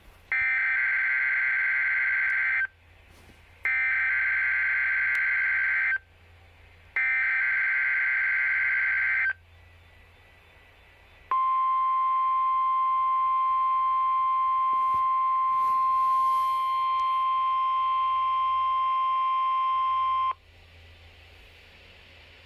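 Midland WR100 NOAA Weather Radio sounding the Emergency Alert System header for a test tornado warning. Three buzzing bursts of digital header data, each about two seconds long, are followed after a short pause by the steady single-pitch weather alert tone. That tone holds for about nine seconds and then cuts off sharply.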